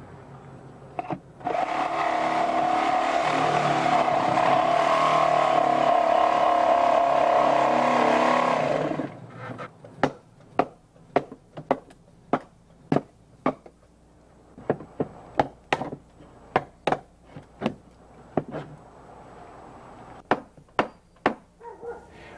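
A handheld power saw runs steadily for about seven seconds, cutting through a wooden bird-blocking board, then stops. After a short pause come about twenty sharp blows, roughly two a second, as a hammer knocks the cut blocking out from between the rafters.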